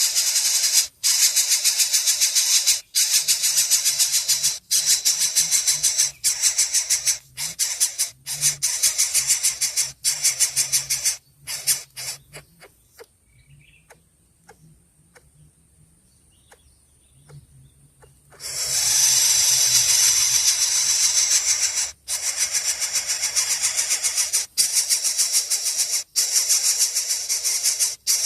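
Baby bird begging with harsh, rapid, hissing calls, high-pitched and nearly continuous, broken by short pauses and falling quiet for about six seconds midway.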